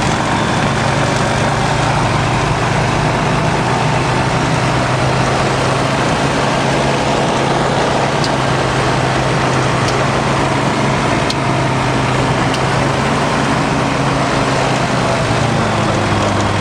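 Pipistrel light aircraft's engine running steadily, its pitch dropping slightly near the end.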